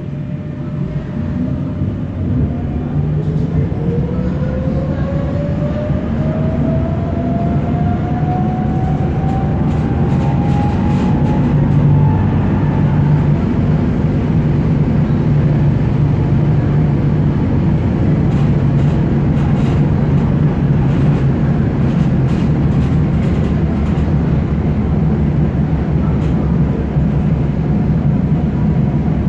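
Tatra KT8D5 tram pulling away and gathering speed: its traction motor whine rises steadily in pitch over about ten seconds over a low running rumble. The tram then runs on at speed, with a scatter of clicks from wheels on the track.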